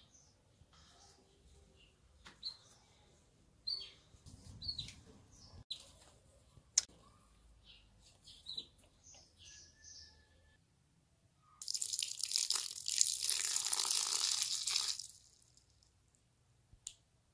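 Small birds chirping now and then, followed about twelve seconds in by a loud, even hiss that lasts about three seconds.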